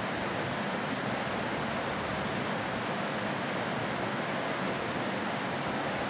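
Steady rain falling: an even hiss that does not change.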